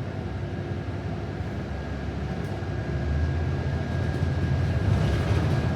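Inside a New Flyer XD40 diesel city bus: the engine and road rumble while the bus moves, growing louder about halfway through.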